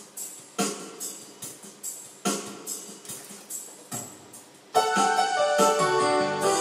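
Electronic keyboard played with a piano sound. Single notes and short chords are struck one after another, each dying away, then about five seconds in, louder held chords begin.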